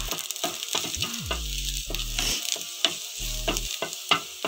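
Garlic and ginger strips sizzling in hot coconut oil in a frying pan while a wooden spatula stirs them. The spatula scrapes against the pan, and there are sharp clicks throughout, the loudest near the end.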